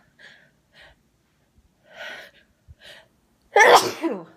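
A woman sneezing: a few short, faint gasping breaths, then a loud sneeze with a falling voiced tail about three and a half seconds in.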